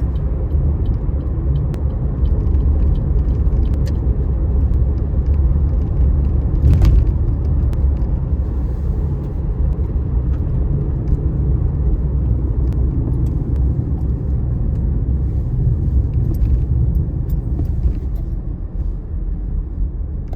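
Steady low rumble of a car on the move, with scattered light clicks and one brief louder crackle about seven seconds in.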